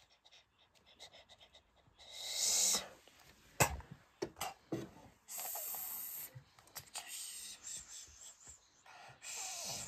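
Toys being handled: three soft hissing rushes, the first about two seconds in, and a few light clicks of plastic dolls and toy pieces knocking together in the middle.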